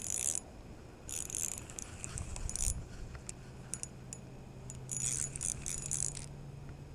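Small clicks, rattles and scrapes of hands handling a caught fish and fishing tackle. They come in short bunches about a second in and again around five to six seconds. A low steady hum sets in about two seconds in.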